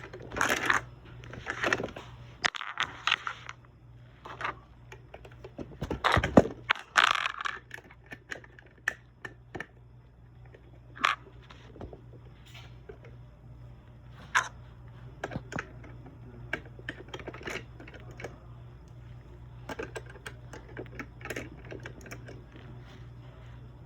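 Plastic LEGO pieces clicking and knocking together as they are handled, in scattered sharp clicks throughout. The louder knocks fall in the first seven seconds.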